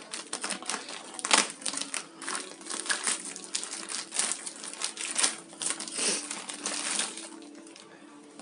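Parcel packaging crinkling and rustling as it is handled and opened by hand, in irregular crackles that thin out near the end.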